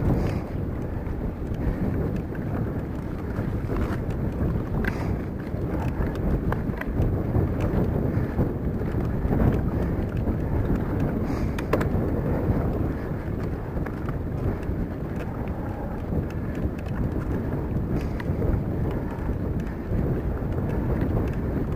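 A steady low rumble of a vehicle on the move, with wind buffeting the microphone.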